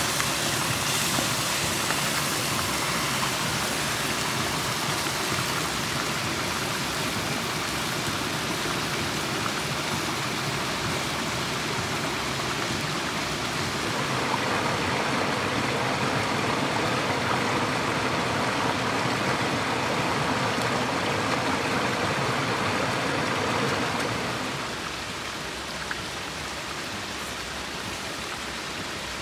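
Steady rushing of running water from a small forest stream, even and continuous, changing character about halfway through and turning quieter near the end.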